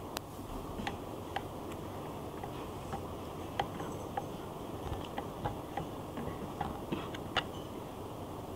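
Glass test tubes and beakers clinking lightly as they are handled: a dozen or so short, irregular ticks over a steady background hiss.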